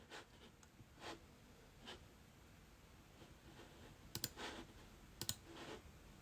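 Faint clicks and soft scrapes, with two sharper clicks standing out about four and five seconds in.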